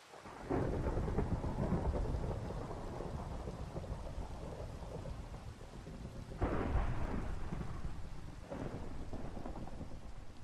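Thunder rumbling over steady rain. A long, deep roll of thunder starts about half a second in, a second loud peal comes about six and a half seconds in, and a weaker one follows about two seconds later.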